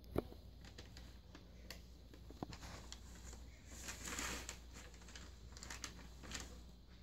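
Paper McDonald's bag crinkling and rustling in short scattered clicks as a cat pushes its head around inside it, with a sharp click just after the start and a longer rustle about four seconds in.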